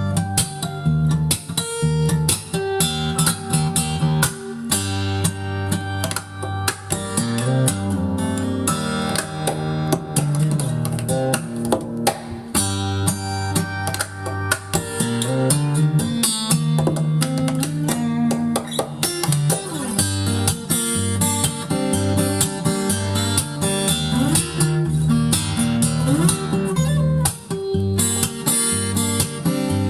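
Instrumental guitar music, plucked and strummed, played back from a vinyl record on a Lehnert PS 907 turntable with a Shure M75-6S cartridge.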